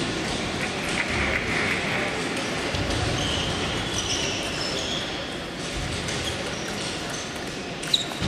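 Table tennis hall ambience: a murmur of voices and scattered clicks of ping-pong balls from other tables. Near the end comes one sharp ball click.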